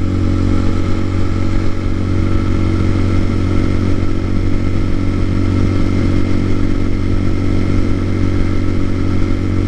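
TaoTao TBR7's 250 cc single-cylinder four-stroke engine running steadily at cruising speed on the road, its pitch holding constant.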